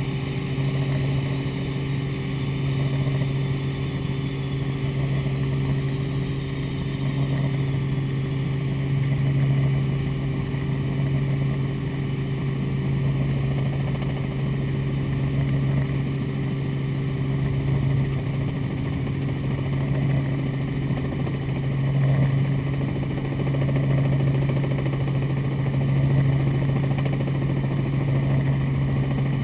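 Robinson R44 Raven II helicopter in flight, heard from inside the cabin: its six-cylinder Lycoming piston engine and rotors make a steady low drone that swells slightly every few seconds.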